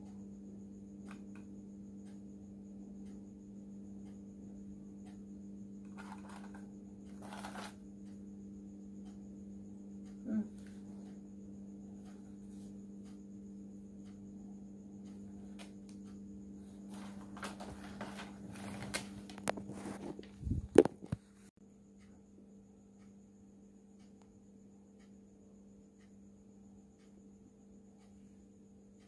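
Rustling and clicking as a new smartphone and its cardboard box are handled, in two bunches, with one sharp click the loudest near the end. A steady hum lies under it and stops about two-thirds of the way in.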